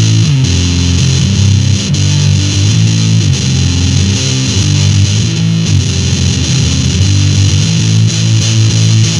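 Electric guitar played through a Musontek FurFur fuzz pedal: thick, distorted chords held and changed every second or so.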